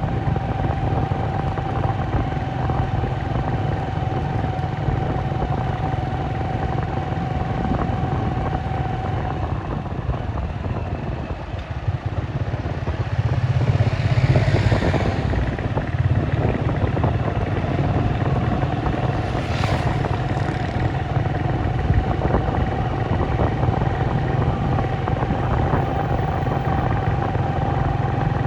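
Steady motor-vehicle engine and road noise with a constant whine, swelling as a vehicle passes close about halfway through, followed a few seconds later by a brief sharp noise.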